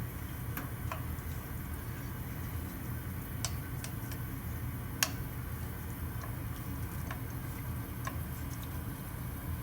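Faint, irregular clicks and ticks of a straight razor's steel against a water stone while its tip is rounded off, with one sharper click about five seconds in, over a steady low hum.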